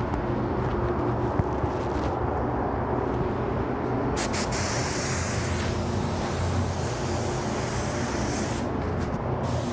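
Iwata spray gun, 1.3 set at about 20 PSI, spraying black sealer: a loud steady air hiss starts about four seconds in, stops briefly near the end and starts again, with short clicks of the trigger before it. A steady low rumble of the paint booth's air runs underneath.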